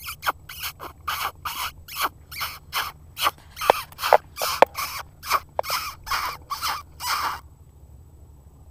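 Predator call sounding a rapid, regular series of short raspy squalls, about two or three a second, to draw in a coyote. The squalls stop abruptly about seven seconds in.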